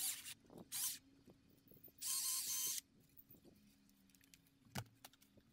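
Stihl MSA 220 battery chainsaw triggered in three short bursts, each a steady whine, the last lasting under a second. A single sharp knock follows near the end.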